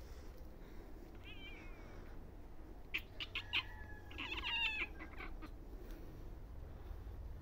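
Young black kittens meowing: a short, faint, high mew, then a few sharp clicks and a louder meow about four seconds in.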